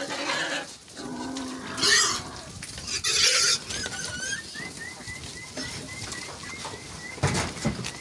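A pen of pigs squealing and grunting, with two loud, harsh squeals about two and three seconds in and a lower call near the end.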